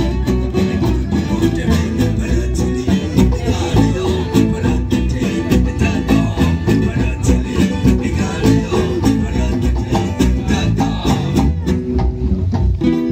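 Live band music: a strummed guitar over barrel-shaped hand drums beating out a quick, steady rhythm.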